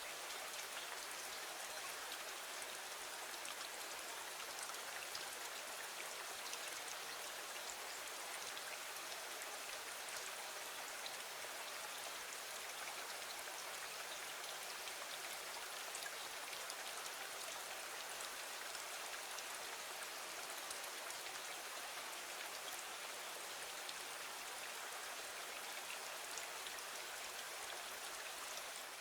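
Steady rain, an even hiss of falling water with fine scattered drop ticks, unchanging throughout.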